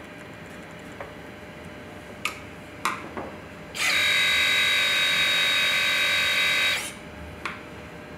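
Hydraulic pump of an RC Volvo EC160E excavator running under load with a loud, steady high whine for about three seconds, starting and stopping abruptly, as the system pressure is tested after turning the relief-valve adjusting screw. A few sharp clicks come shortly before it.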